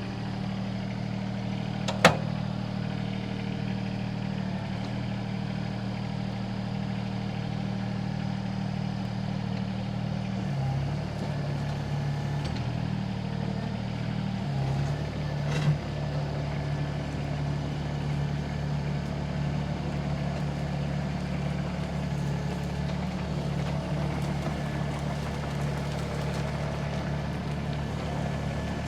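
SANY SY26U mini excavator's diesel engine running steadily. Its note shifts about ten seconds in and again about fourteen seconds in. A sharp clack comes about two seconds in, and a smaller knock near the middle.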